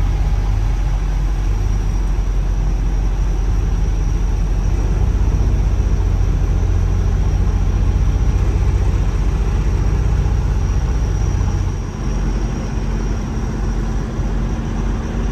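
Kenworth semi truck's diesel engine running at low speed, heard from inside the cab as a steady low drone. About twelve seconds in, the drone shifts and a steadier low hum comes in.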